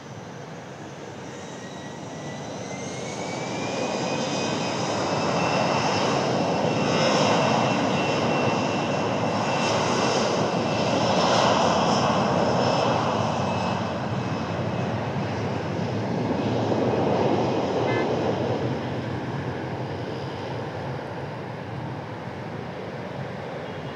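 Airbus A320's twin turbofan engines at takeoff thrust as the airliner rolls down the runway. A whine rises in pitch over the first few seconds above a broad rush, grows louder to a peak through the middle, then slowly fades as the plane moves away.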